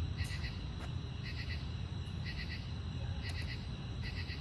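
Chirping from a small animal outdoors: a short chirp of about three quick pulses, repeated about once a second, over a steady low rumble of wind on the microphone.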